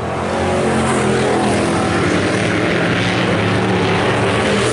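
IMCA Hobby Stock race cars' engines running in a steady, loud drone.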